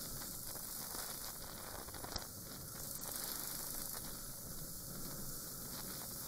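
Steady hiss of wind and road noise with a low rumble underneath, as picked up by a dashcam microphone on a riding Suzuki Grasstracker Big Boy motorcycle. A single short click about two seconds in.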